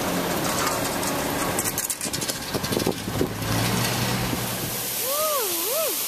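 A car engine idling with a steady low hum and a few scattered knocks and rustles. About five seconds in the sound cuts to the steady rushing hiss of a waterfall, with a voice wavering up and down in pitch over it near the end.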